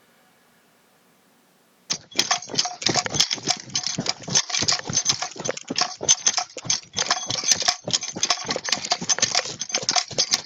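Footsteps crunching and scraping on loose dirt and rocks during a steep downhill hike on a slippery trail. Dense, irregular crackling with many sharp clicks, starting suddenly about two seconds in after near silence.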